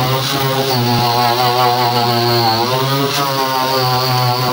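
Electric angle grinder with a sanding pad running under load against rusty sheet metal, a steady high motor whine whose pitch wavers and dips as it is pressed into the surface. It is cleaning and roughening the old surface so contact cement will bond.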